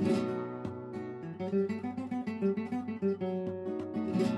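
Background music: an acoustic guitar piece, with full strummed chords at the start and near the end and single picked notes between.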